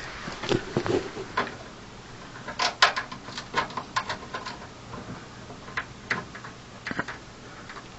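Screws and a metal computer case being handled while a power supply is fitted: scattered small clicks and taps at an irregular pace, the loudest bunch about three seconds in.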